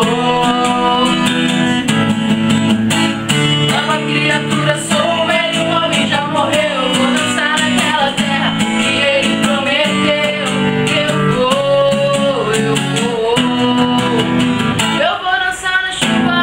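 Gospel song with acoustic guitar and singing.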